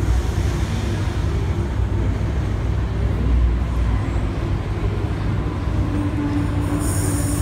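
Steady low rumble of an enclosed underground railway platform. Near the end come a brief high hiss and a short held tone.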